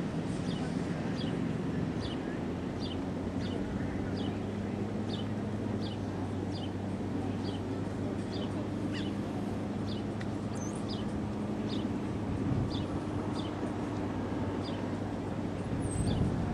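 A bird repeats a short, high, downward chirp about twice a second over a steady low motor hum.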